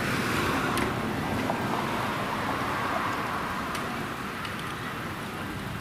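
A passing vehicle's steady rushing noise, strongest in the first few seconds and then easing slightly.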